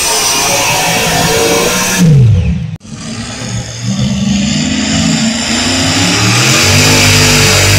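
Pulling tractor's engine running hard at full throttle during a tractor pull, its pitch falling sharply about two seconds in as the power comes off, then cut off abruptly.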